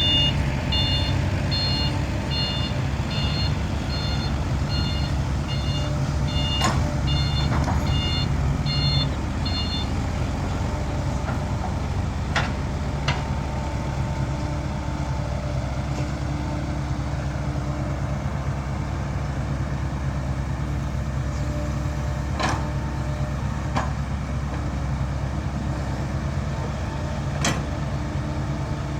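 A heavy diesel machine's engine runs steadily while a reversing alarm beeps about twice a second for the first ten seconds or so, then stops. The engine keeps running, with a few sharp clacks scattered through the rest.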